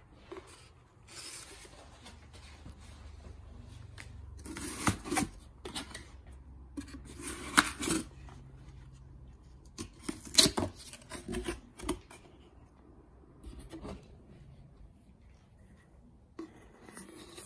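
Cardboard carrier box being handled and opened, its flaps rustling, rubbing and scraping, with sharp cardboard snaps about five, seven and a half and ten seconds in.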